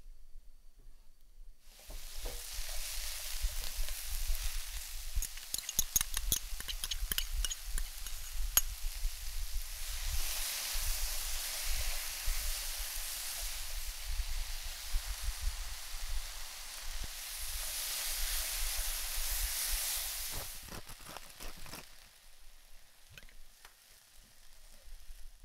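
Stir-fried pork and vegetables sizzling in a hot pan while being stirred, with many quick clicks and scrapes of the spatula against the pan. The sizzle starts abruptly about two seconds in and dies down near the end.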